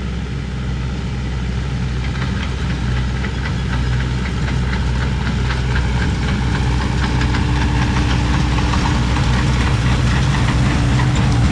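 A heavy engine running steadily and getting slightly louder, with a rapid knocking clatter over it.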